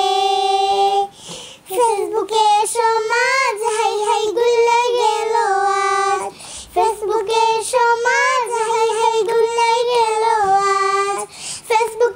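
Two young girls singing a Bengali gazal without accompaniment, in phrases with long held notes and short breaks for breath about every five seconds.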